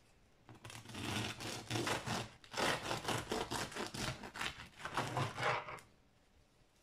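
Serrated bread knife sawing back and forth through a freshly baked, crisp-crusted spelt and rye loaf, in quick strokes that start about half a second in and stop near six seconds.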